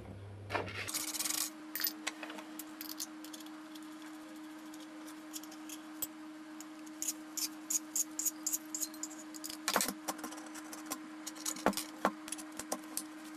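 Vespa Cosa clutch plates and basket being handled and fitted together: many small metallic clicks and clinks, busiest in the second half, over a faint steady hum.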